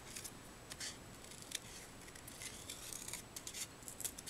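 Scissors snipping paper in short, quiet, irregular cuts while a small cloud shape is cut out by hand.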